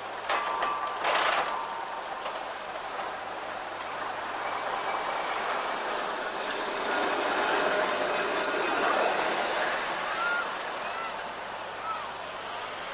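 Blackpool Balloon double-deck tram running along street track, its wheels rumbling on the rails, with a louder clatter about a second in and a couple of short wheel squeals near the end.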